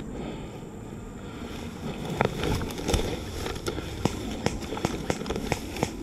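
Tall grass and dry stems rustling and snapping as a person moves through them. Irregular sharp crackles start about two seconds in.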